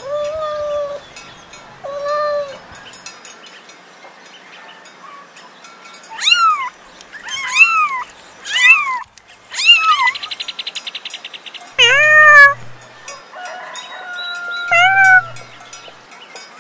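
Domestic cats and kittens meowing: about nine separate meows with pauses between them, the ones in the middle shorter and higher-pitched than those near the start and end.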